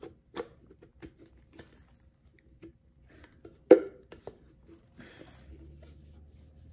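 Light plastic clicks and taps as a snap-on handle is worked onto a nut milk machine's plastic cup, with one sharp click a little over halfway through. A faint low hum comes in about five seconds in.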